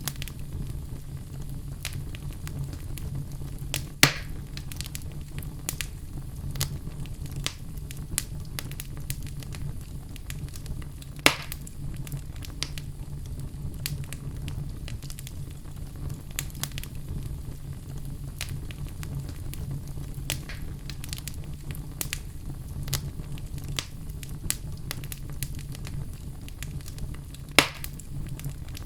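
Wood fire burning in a fireplace: a steady low rumble of flames with frequent small crackles and three sharp, louder pops from the logs.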